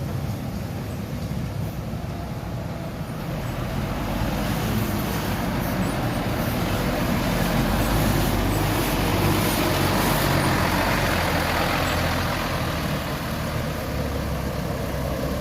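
A bus's engine running with road noise, growing louder to a peak about eight to ten seconds in and then easing off as it passes.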